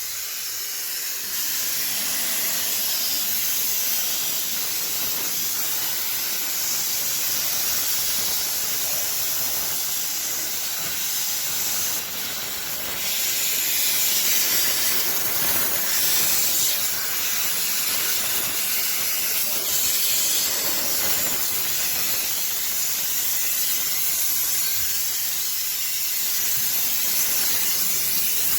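Car upholstery cleaning machine giving a steady, high hiss of steam or spray, with a brief dip about twelve seconds in.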